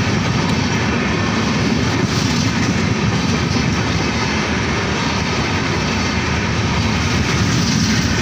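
Indian Railways passenger train coaches passing close by at speed: a loud, steady rush of steel wheels on rails.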